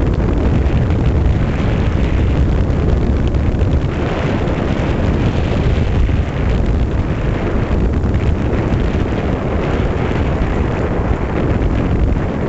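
Wind rushing over the microphone of a bicycle rolling downhill at speed: a loud, steady rumble with no breaks.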